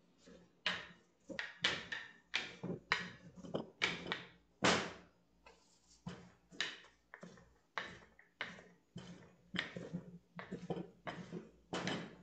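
Rolling pin rolling out a small ball of dough on a floured stainless-steel counter: a run of short back-and-forth rubbing strokes, roughly two a second, with a short break about five seconds in.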